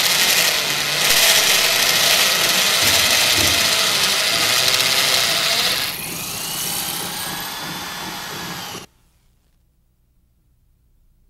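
Electric rotary hammer drill hammer-drilling an anchor-bolt hole into concrete with a loud, steady din. About six seconds in the din drops and the drill runs lighter with a gliding whine, then the sound cuts off suddenly near nine seconds, leaving near silence.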